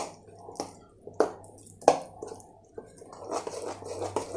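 Spoon stirring a thick green herb-and-curd marinade in a plastic bowl: wet squelching, with sharp taps of the spoon against the bowl about every half second in the first two seconds, then a busier run of squishing near the end.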